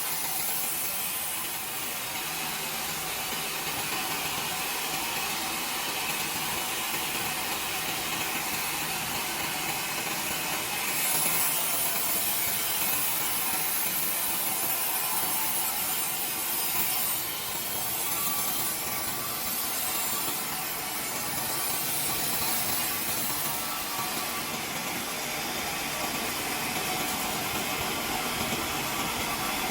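Sawmill saw cutting through timber: a steady, high-pitched sawing noise that swells slightly about eleven seconds in.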